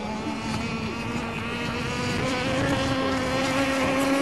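Small engine of a radio-controlled racing powerboat running flat out with a steady, high-pitched tone, its pitch edging up slightly and growing louder as the boat approaches.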